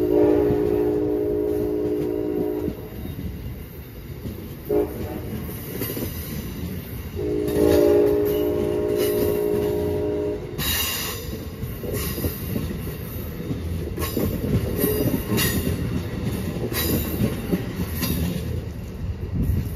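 Amtrak train's multi-chime air horn sounding a chord: a long blast, a short toot about five seconds in, then another long blast around eight to ten seconds, over the rumble of passenger coaches rolling past close by. In the second half the wheels squeal and click over the rail joints as the last cars pass.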